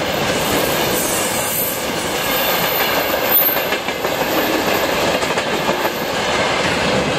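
Freight train of dump cars rolling past close by at about 65 km/h: a steady rumble and rattle from the wagons' bogies, with wheels clicking over the rail joints.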